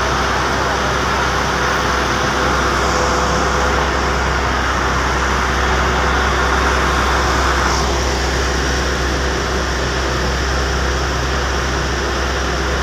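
Fire engine's engine and water pump running steadily, a constant loud hum with a rushing noise over it, slightly softer from about eight seconds in.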